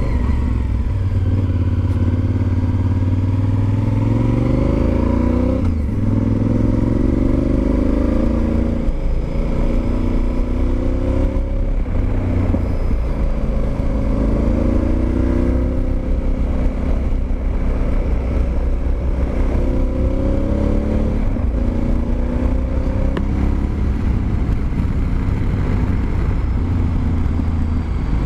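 Honda Varadero XL1000V's 1000 cc V-twin engine running under way, its pitch climbing and dropping back again and again as the throttle is worked.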